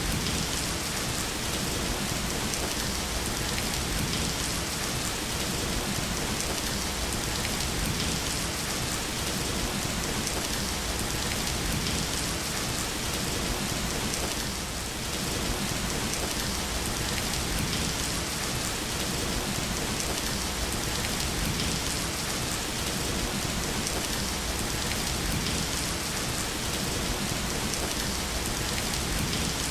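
Steady rain falling, an even hiss, briefly softer about halfway through.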